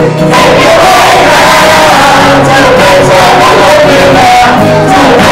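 Live performance of a song: a male singer with an acoustic guitar, the audience singing and shouting along.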